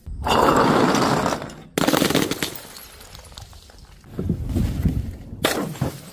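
Glass bottles breaking: a sudden dense crunch of shattering glass lasting over a second, a second crash a little before two seconds in, lower thuds, then one more sharp crash near the end.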